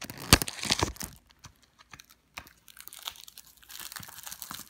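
Plastic shrink-wrap being torn and peeled off a DVD case: sharp crackles in the first second, then quieter crinkling of the plastic that picks up again near the end.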